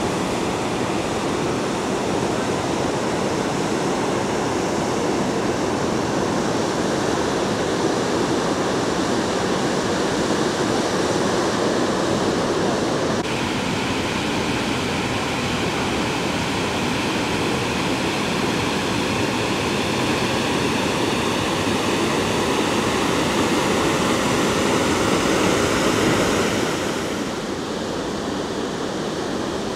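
Steady outdoor rushing noise, changing abruptly about 13 seconds in and dropping in level near the end.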